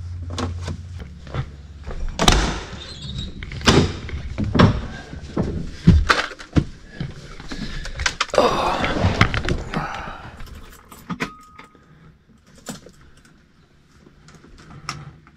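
A string of clicks, knocks and clattering thunks from hands handling switches and parts, with two stretches of rustling. It thins out to a much quieter spell in the last few seconds.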